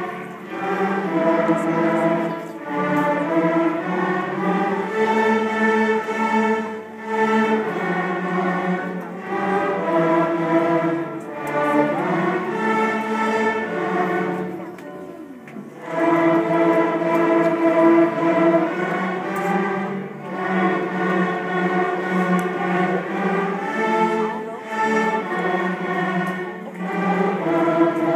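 Beginner school string orchestra of violins, violas, cellos and basses playing a simple tune with bows, the teacher's violin playing along, in long held notes and phrases. The sound drops to a brief quieter gap about halfway through before the full section comes back in.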